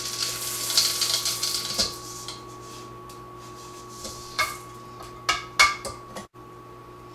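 A flex edge beater being handled and pushed onto the beater shaft of a KitchenAid Artisan stand mixer. About two seconds of scraping and rustling are followed, from about four seconds in, by a few sharp metal clicks and clinks as the beater is seated and locked on the shaft. A faint steady hum runs underneath.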